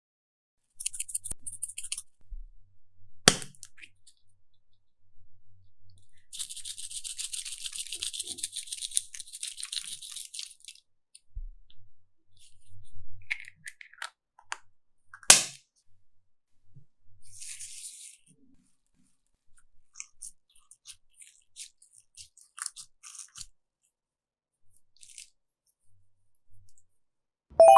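Slime being handled: sticky crackling and clicking pops, with a longer crackly stretch from about six to ten seconds in and two sharp clicks, one about three seconds in and one about fifteen seconds in.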